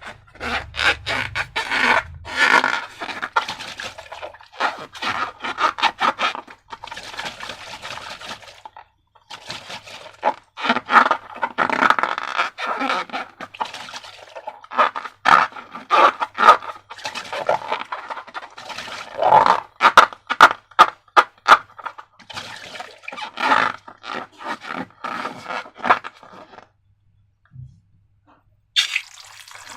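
Slime being stirred and squished, heard as rapid wet clicking and scraping in bursts. It pauses briefly about a third of the way in and again near the end, and just before the end running water starts.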